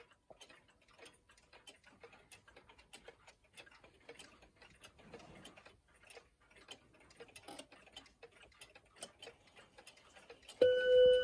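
Junghans wall clock ticking steadily, then near the end its movement starts striking: a loud ringing chime tone, joined by a second, lower-pitched one about a second later.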